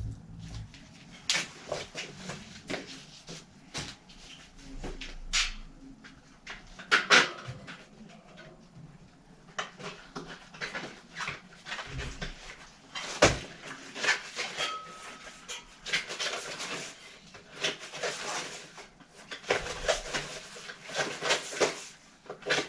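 Bicycle tyre and inner tube being handled and worked onto a wheel rim by hand: irregular rubber rubbing, rustling and clicks, with a brief squeak about two thirds of the way in.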